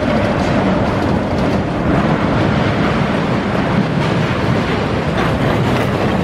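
Cars of an E&F Miler steel roller coaster rumbling and clattering along the track in a steady run.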